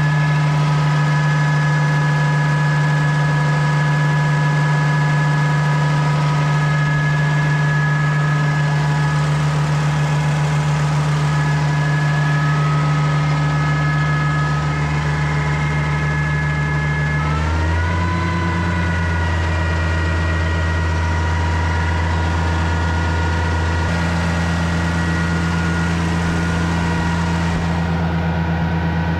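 Oliver 1650 tractor's six-cylinder engine running steadily on a short test run, sounding smooth; the engine is suspected of getting coolant into its oil. About 17 seconds in, its note shifts lower, then holds steady again.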